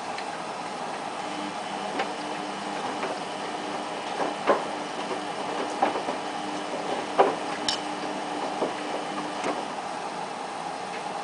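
Samsung WF8804RPA front-loading washing machine at the start of a wash with a load of jeans: a steady rushing noise with a low hum that sets in about a second and a half in and stops near the end, and irregular clicks and knocks from the turning drum, the loudest about halfway through.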